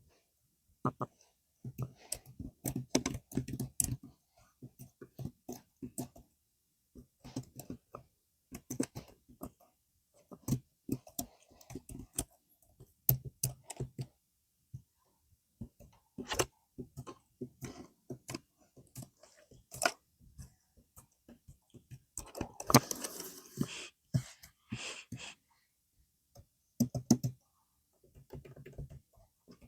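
Computer keyboard being typed on: irregular clusters of key clicks with short pauses between them. A denser, louder flurry of clicks comes about three quarters of the way through.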